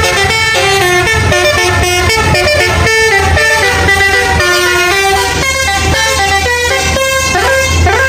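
Indonesian coach's musical 'basuri' (telolet) air horn playing a quick melody of changing notes, with the bus engine's low hum underneath.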